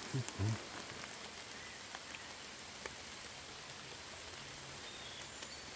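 Light rain in a forest: a steady soft hiss with a few scattered drops ticking on leaves.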